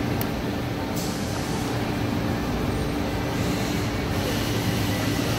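Steady mechanical hum and rumble with a constant tone, and one faint click just after the start.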